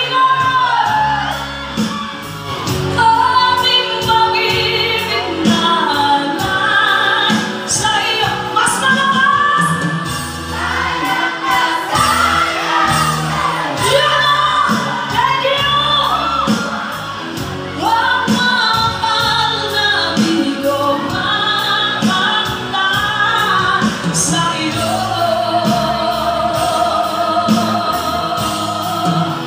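Live cover band of electric guitar, bass, keyboard and cajón playing a power ballad with a woman singing lead; near the end she holds a long, wavering high note.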